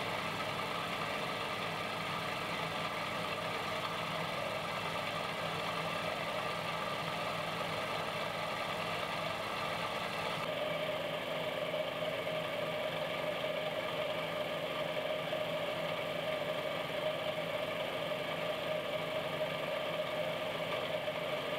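Swan twin-cylinder air compressor pump, belt-driven by a 3 hp electric motor, running steadily as it pumps up its 250-gallon propane-tank receiver. The sound changes slightly about halfway through.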